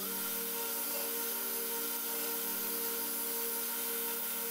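Belt grinder running steadily, a steady motor hum under the hiss of a steel sword guard being ground against the belt to put a taper on it.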